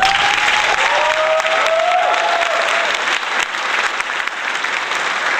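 Crowd applauding and cheering, starting suddenly and running at a steady level, with a few whooping voices over it in the first two seconds.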